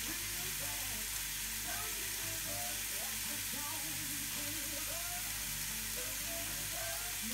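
Ribeye steak sizzling steadily between the hot plates of a closed Tefal OptiGrill XL contact grill, with jazz music playing in the background.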